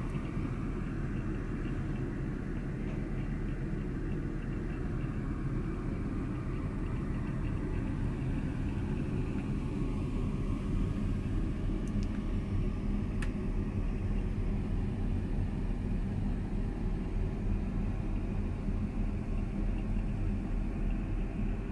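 Steady low rumble of the coastal ship MS Lofoten's engines and machinery, heard inside a small cabin.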